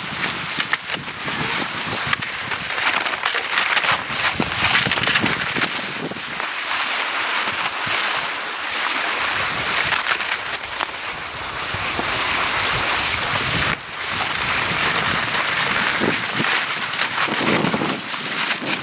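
Cross-country skis hissing and scraping along groomed tracks in snow, a continuous rushing noise, with wind buffeting the microphone.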